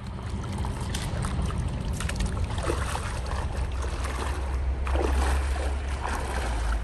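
Wind rumbling on the microphone, a steady low buffeting noise with scattered clicks and scuffs.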